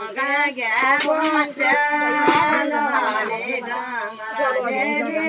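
Several voices singing together, with talk mixed in among them.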